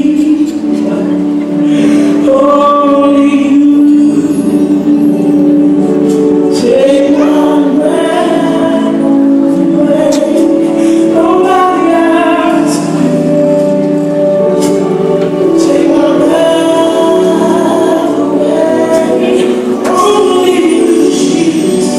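Gospel song sung by a choir, a continuous flowing melody with several voices.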